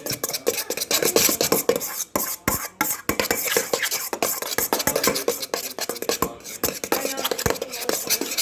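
A spoon stirring a thick, wet mix of glue, shaving cream and food colouring in a bowl: a fast, continuous run of squelchy clicks and scrapes against the bowl.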